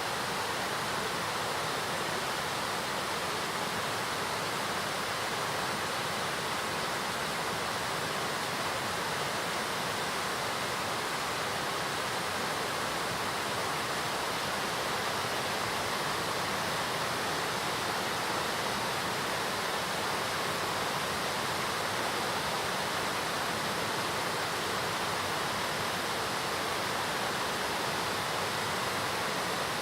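Large waterfall with heavy flow, its water pouring down in a steady, even rush that does not change.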